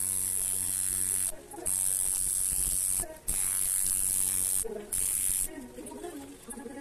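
Electric tattoo machine buzzing with a steady high whine over a low hum as the needle works into the skin, running in stretches of one to two seconds with three short pauses, then stopping about five and a half seconds in.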